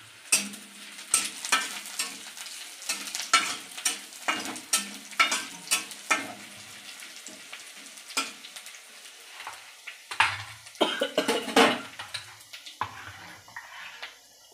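A flat spatula scraping and stirring chopped onions and whole spices frying in oil in a metal wok, with a light sizzle under it. The scrapes come irregularly, about two a second, and thin out near the end.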